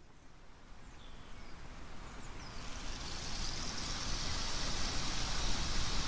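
Outdoor forest ambience fading in: a steady hiss that grows louder, with a few faint high bird chirps in the first half.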